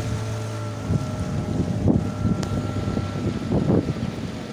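Motorized wooden dugout canoe under way: a steady engine hum with water rushing along the hull. From about a second in, uneven gusts of wind buffet the microphone.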